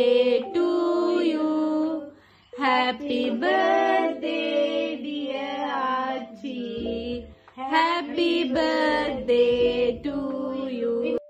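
Female voices singing without accompaniment, in held phrases broken by a few short pauses.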